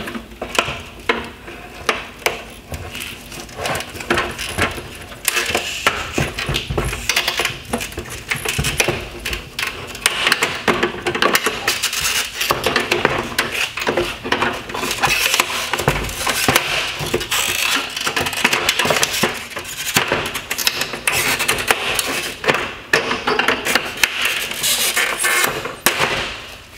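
Hard plastic parts of a Mercedes-Benz C-Class LED headlight being worked apart by hand: many small clicks and knocks, with scraping and rubbing of plastic on plastic from about five seconds in.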